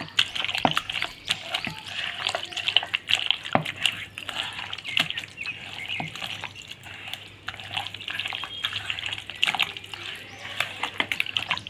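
A hand squishing and mixing raw chicken pieces in a thick, wet yogurt-and-spice marinade, with many short, irregular wet squelches and clicks.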